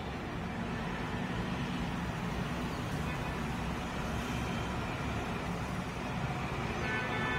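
Steady low rumble of background noise with an even hiss over it.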